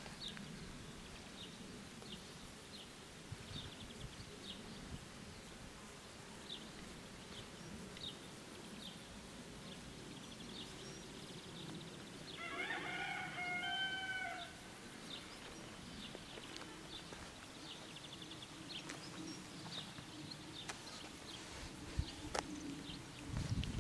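A rooster crows once, about halfway through, over small birds chirping in short high notes.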